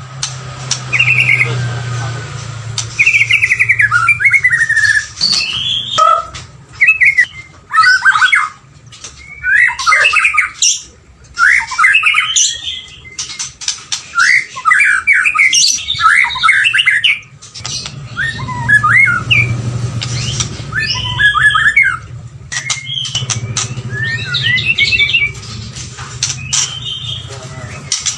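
White-rumped shama singing: a long run of short, varied whistled and chattering phrases, one after another with brief pauses between them.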